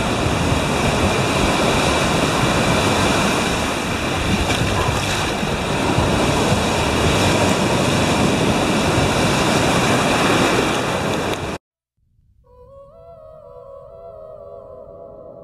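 Ocean surf breaking and washing up a sandy beach, a continuous rush of waves that cuts off abruptly about eleven and a half seconds in. After a brief silence, soft ambient music with sustained, slowly shifting tones fades in.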